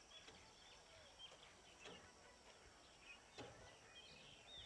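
Near silence: quiet outdoor background with scattered faint bird chirps and two soft knocks, about two seconds in and again near three and a half seconds.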